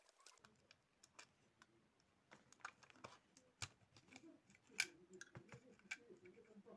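Faint, irregular clicks and taps of a computer mouse's small plastic parts and screws being handled as the mouse is unscrewed and opened, the sharpest click coming just under five seconds in.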